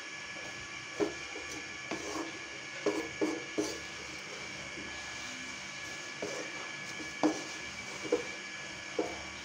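Wooden spatula stirring sliced onions and green chillies in a wok of hot ghee: short scrapes and knocks against the pan about once a second, with a lull midway, over a steady hiss.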